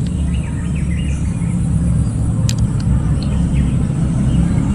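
A steady low rumble, with a few faint bird chirps in the first second or two and a single short click partway through.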